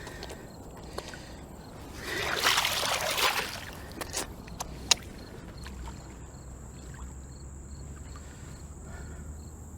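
A splash about two seconds in as a released channel catfish goes back into the water, followed by a couple of sharp clicks and then a faint, even ticking.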